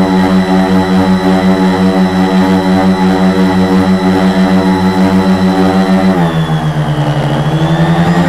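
Four Multistar 2212 920kv brushless motors spinning 10x4.5 props on a 450-size quadcopter, heard from a camera on the frame: a loud, steady buzzing hum with a regular pulsing beat. About six seconds in, the pitch drops sharply as the motors slow, then slowly climbs back.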